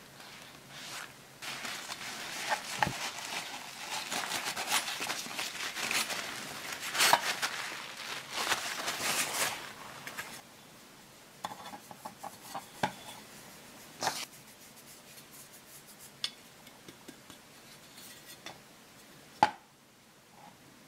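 Paper towel rubbing and rustling as butter is wiped over a metal pancake ring, dense and scratchy for about half the time. Then come quieter handling noises and a few sharp clicks and taps of the floured metal ring, the loudest near the end.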